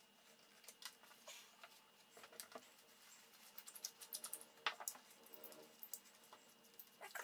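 Faint, irregular small clicks and rustles: a Pozidriv screwdriver turning a speaker's woofer mounting screws through a wad of kitchen towel, with the towel rustling against the baffle.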